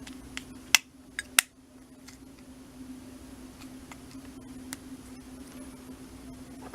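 Plastic clicks and taps from a Ford Fiesta remote key fob's casing being handled and pressed back together, with two sharp snaps in the first second and a half, over a steady low hum.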